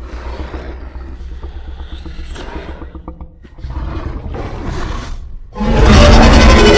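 Cartoon Spinosaurus sound effects: quieter low, rough growls, then a loud roar starts suddenly near the end.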